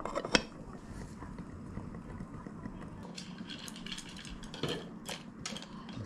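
Ceramic tableware clinking: two sharp clacks at the start as the ceramic lid comes off the clay pot, then light clicks of chopsticks against bowls and dishes through the second half.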